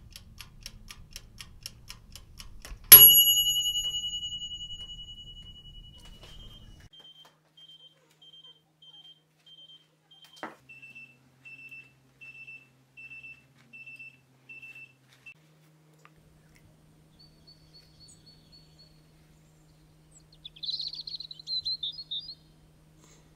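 Kitchen-timer sounds: quick ticking, then a loud bell ding about three seconds in that rings on for a few seconds. A run of short electronic beeps, about two a second, follows and steps down in pitch after a click about ten seconds in. Birds chirp briefly near the end.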